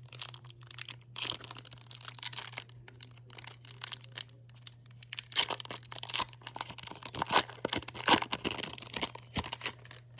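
A plastic trading-card pack wrapper being torn open and crinkled in the hands, in irregular crackling bursts that are loudest in the second half. A steady low hum runs underneath.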